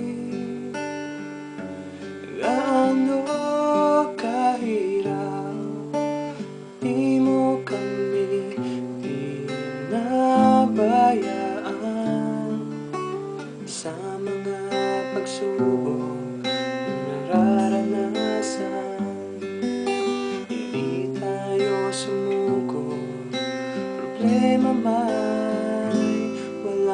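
A Tagalog song with acoustic guitar strumming chords under a solo voice singing the melody.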